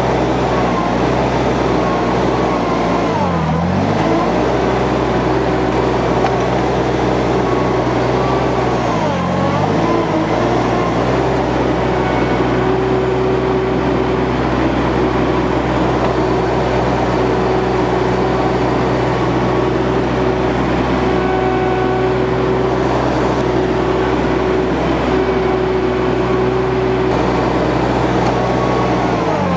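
Summit TX25 compact tractor engine running steadily under load while its front-loader stump bucket digs out stumps. Twice the engine is pulled down briefly and then recovers.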